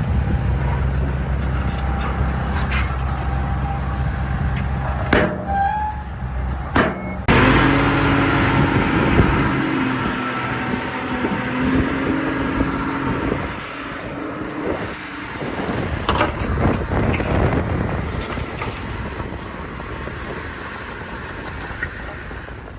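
Heavy diesel earthmoving machinery running under load, with the engine note breaking off abruptly twice around five to seven seconds in and a different, noisier engine sound taking over.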